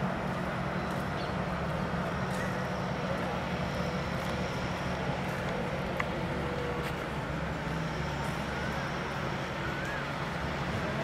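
Fishing-harbour ambience: an engine running with a steady low hum, with faint distant voices over it.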